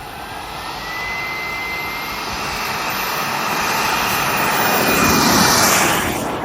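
Model jet turbine of an Avanti RC jet flying past: a high whine with rushing air that grows louder, peaks about five seconds in, then drops in pitch and fades as the plane passes.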